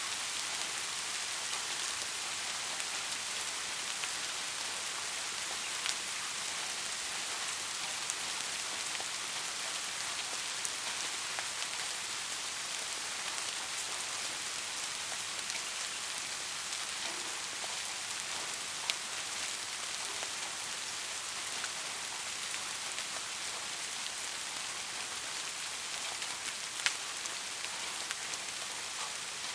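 Steady rain falling, an even hiss with scattered individual drops ticking; a couple of sharper drop hits stand out, one past the middle and one near the end.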